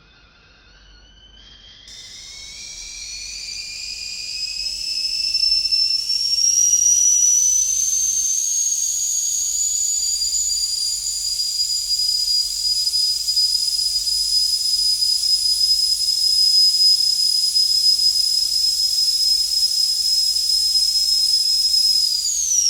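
Stovetop kettle whistling at the boil. The whistle climbs in pitch and grows louder over the first several seconds, then holds a steady shrill tone with steam hiss, and slides down in pitch right at the end.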